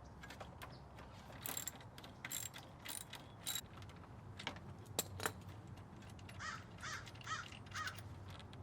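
Socket ratchet clicking in short bursts as the catalytic converter's mounting bolts are loosened, with a couple of sharp metal clicks about five seconds in. A crow caws four times near the end.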